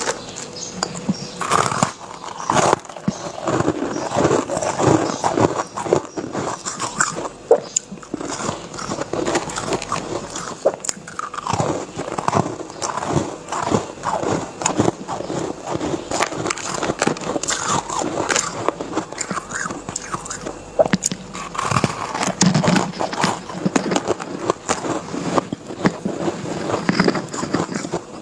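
Close-miked biting and crunching of chunky soft white ice: quick, irregular crackling crunches as chunks are bitten through and chewed.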